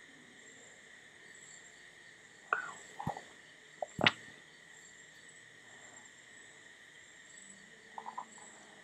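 Thick tomato-and-potato curry gravy simmering in a pan, with a few sharp bubble pops between about 2.5 and 4 seconds in, the loudest near 4 seconds, and two small ones near the end. The curry is at a steady boil. Behind it runs a faint, steady, thin high-pitched background tone.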